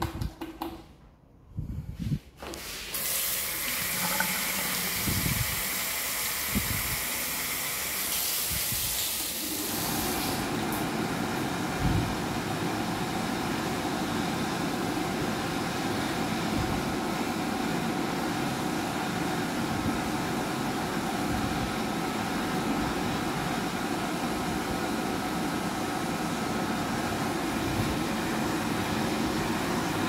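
Soap dispenser pumped with a couple of clicks, then a tap running for several seconds. About ten seconds in, a Probbax (Kingwe SoftDry) automatic hand dryer takes over, its motor and blower running steadily under the hands.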